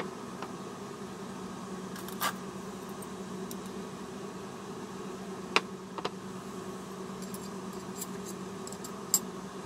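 Stainless-steel chopsticks clicking against a ceramic bowl and each other a few times: a sharp click about two seconds in, two more around five and a half and six seconds, and one near the end. Under them runs a steady low machine hum.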